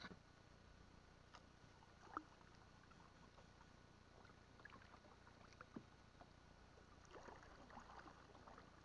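Near silence on a small fishing boat on the water, broken by a few faint, light knocks: one about two seconds in, one near six seconds and a small cluster near the end.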